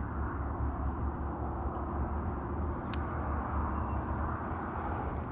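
Steady outdoor background noise: a low, fluctuating rumble with a hiss above it, and a single short click about three seconds in.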